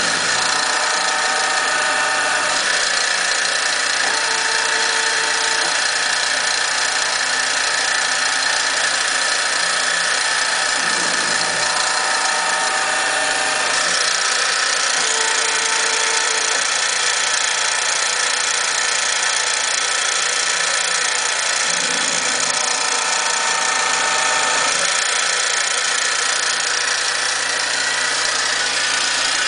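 CNC-converted Harbor Freight micro mill running, its spindle motor giving a steady whine while a small drill bit drills a hole pattern in a metal plate. A few times, brief extra tones come in as the table steps between holes.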